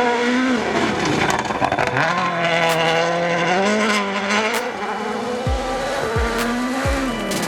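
A World Rally Car's turbocharged four-cylinder engine revving hard. Its pitch rises and falls repeatedly as it shifts gears, with tyre noise and a few sharp cracks.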